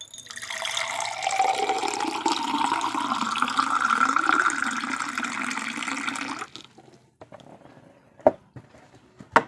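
Water being poured into a thin 350 ml Borosil drinking glass for about six seconds, the pitch of the pour rising as the glass fills. Two sharp knocks follow near the end.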